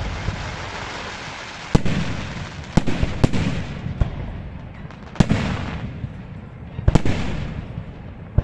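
Fireworks display: sharp shell bursts every second or two, each followed by a rolling echo that fades away, with a quick cluster of three bangs about three seconds in and a double bang near seven seconds.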